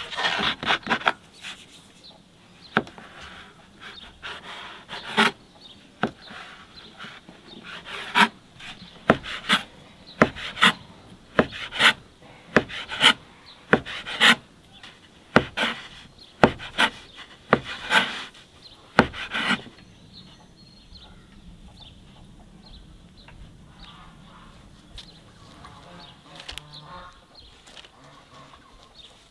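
Dough being worked by hand on a floured wooden board: rubbing and rolling with a series of irregular sharp knocks on the wood, which stop about two-thirds of the way through.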